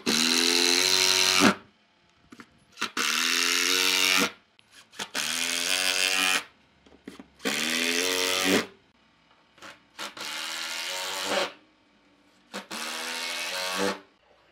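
Cordless Makita impact driver driving long wood screws into pine, in six separate bursts of about a second and a half each. The pitch rises as the motor spins up at the start of each burst.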